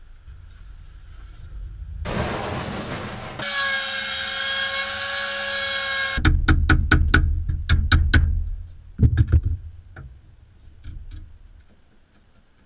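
Workshop power-tool sounds in quick succession: a short hiss, then a corded hand-held power tool running on the edge of a plywood cabinet with a steady high whine for about three seconds that cuts off suddenly. A quick run of sharp clicks over a low rumble follows, then a few knocks.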